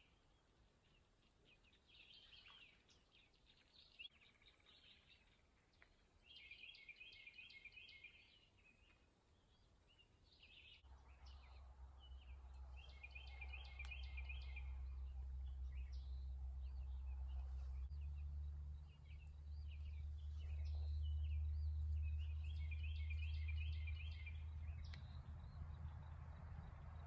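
A songbird sings the same short phrase of rapid repeated notes three times, roughly every eight seconds, among scattered chirps. From about eleven seconds in, a steady low rumble comes in and is the loudest sound.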